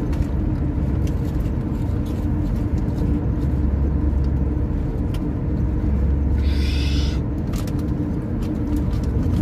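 Steady road and engine rumble inside a moving car's cabin, with a brief higher-pitched sound about two-thirds of the way through.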